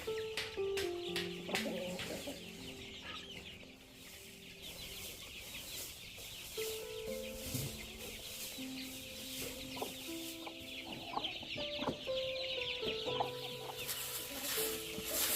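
Slow instrumental background music of long held notes that change pitch step by step, over chickens clucking and chirping.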